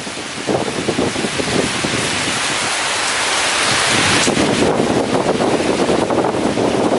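Heavy rain driven by strong, gusting wind through small trees, a continuous rushing hiss. A gust swells in the middle, brightening the rush before it falls back into lower buffeting.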